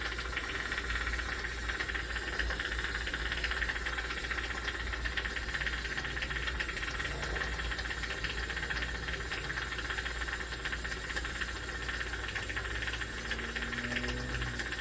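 Jeweler's soldering torch flame hissing steadily while solder is brought to a hollow gold necklace link.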